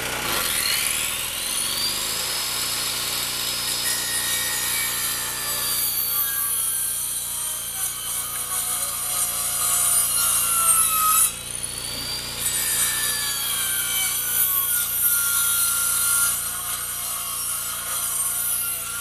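Handheld electric circular saw spinning up with a rising whine, then cutting through wooden boards. The motor drops off briefly about eleven seconds in and speeds up again for another cut.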